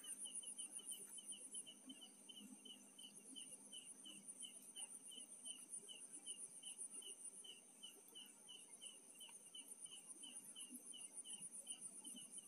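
Faint night insects chirping: a steady high-pitched trill with a lower chirp repeating about three times a second.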